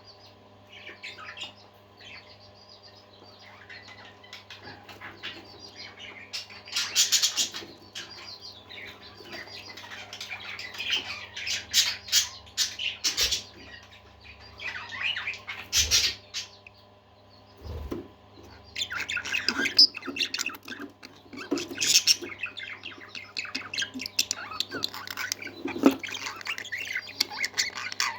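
Parakeets chattering and warbling continuously, broken by frequent loud, shrill squawks.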